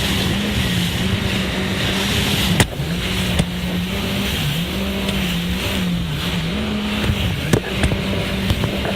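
Jet ski engine running at speed, its pitch dipping briefly several times as the throttle eases and comes back, over a steady rush of water and wind. A couple of sharp knocks break through, the loudest about two and a half seconds in.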